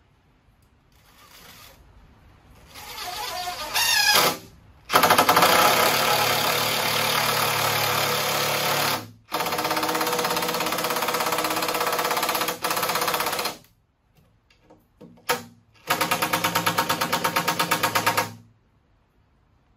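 Cordless impact driver driving long deck screws into wooden joist blocking, in several runs of rapid hammering. A soft start and ramp-up lead into two long runs about four seconds each, split by a short break, then a few brief blips and a last run near the end. Its battery is running low.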